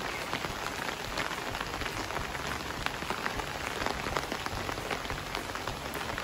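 Steady rain falling, an even hiss dotted with many individual drops ticking close by.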